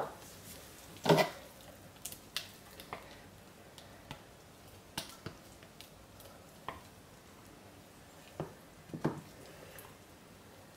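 Scattered light knocks and clicks from handling soap-making tools: a silicone spatula set down, and a plastic jug lifted and tipped to pour soap batter into a wooden mould. The loudest knock comes about a second in; the rest are small, sparse clicks.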